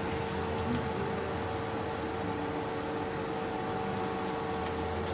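Steady electrical hum: a constant tone with fainter overtones over a low background hiss.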